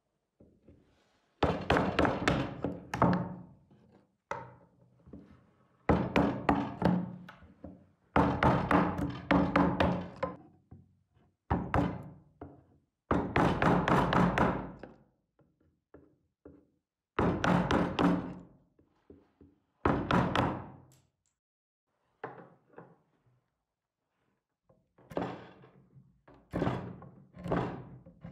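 Bursts of rapid knocks as a chisel is driven into a walnut slab, chopping and splitting out soft, rotten wood. Each burst lasts one to two seconds, with short pauses between, about nine times over.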